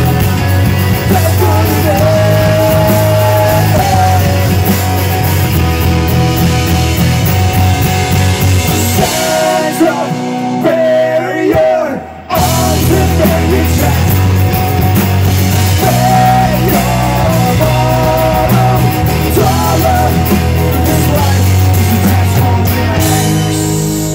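Punk rock band playing live: guitars and drums with a man singing loudly into the microphone. About halfway through, the band thins out and almost stops for a moment, then crashes back in at full volume.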